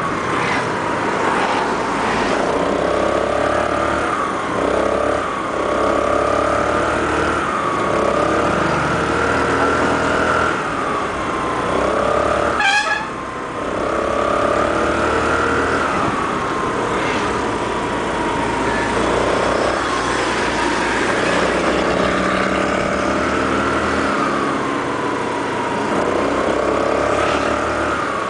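Motor scooter engine running on the move, its whine rising and falling again and again as the scooter speeds up and slows. A brief sharp sound cuts in about halfway through.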